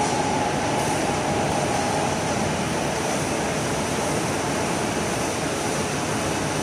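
Steady rushing noise with no distinct events, and a faint hum that fades out about two seconds in.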